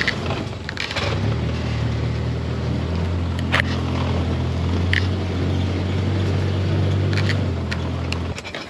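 Polaris Ranger side-by-side's engine running steadily as it drives along a rough trail, with scattered knocks and rattles from the body and cab. The engine sound cuts off near the end.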